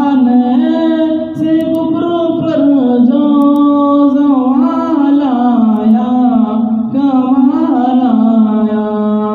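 A man singing an Urdu naat unaccompanied into a handheld microphone, a slow melody of long held notes that glide up and down.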